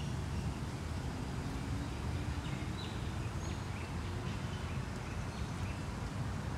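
Urban park ambience: a steady low rumble of distant city traffic, with a few short bird chirps in the middle.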